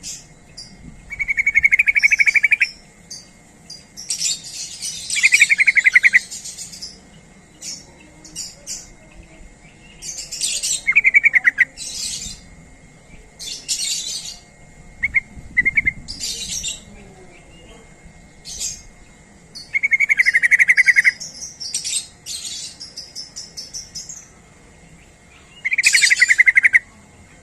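Yellow-vented bulbul (trucuk) calling: loud, burry trilled phrases of about a second each, repeated every few seconds, with sharp high chirps between them.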